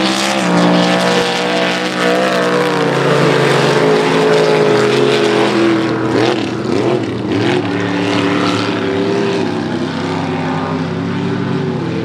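Mud-racing trucks' engines at full throttle down a dirt track, a loud steady engine note that slowly falls in pitch as they pull away. About six seconds in, the pitch swings up and down as the engines rev.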